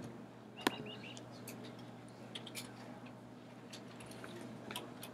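Faint, scattered clicks from a computer being clicked and scrolled, the sharpest just under a second in, over a low steady hum.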